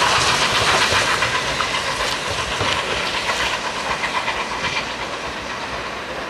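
Peppercorn A1 Pacific steam locomotive 60163 Tornado pulling away with its coach: steam hiss and exhaust mixed with the clatter of wheels over the rail joints and pointwork, fading steadily as the train draws away.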